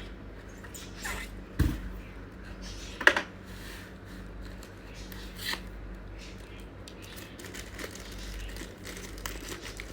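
Packaging crinkling and rustling as it is handled, with a low knock about one and a half seconds in and a sharp click about three seconds in.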